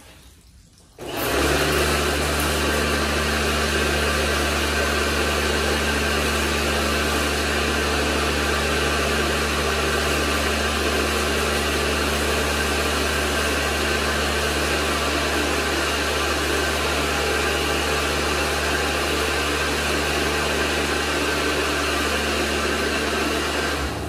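Electric pressure washer running, its pump motor humming steadily under the hiss of a water jet from a homemade garden-hose lance with a 1 mm nozzle hole. It starts suddenly about a second in and stops near the end.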